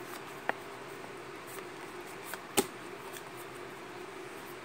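Pokémon trading cards being handled and flipped through by hand, giving a few light clicks and snaps of card against card, the sharpest about two and a half seconds in, over a faint steady hum.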